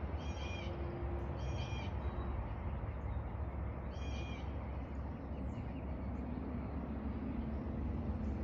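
A bird calling, three short calls, the second about a second after the first and the third a few seconds later, over a steady low outdoor rumble.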